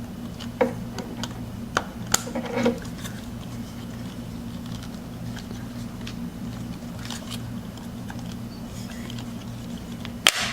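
Small plastic clicks and handling noises as a clip-on backpack piece is worked onto a 12-inch plastic action figure, ending with one sharp click near the end as it snaps into place. A steady low hum runs underneath.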